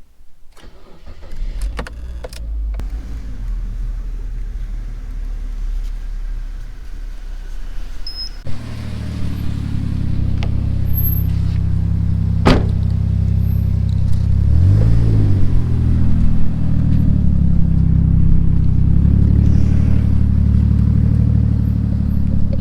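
Toyota Chaser's 1JZ-GTE turbocharged straight-six engine running: a low rumble for the first eight seconds, then louder and steady, with a brief rise and fall in pitch about fifteen seconds in.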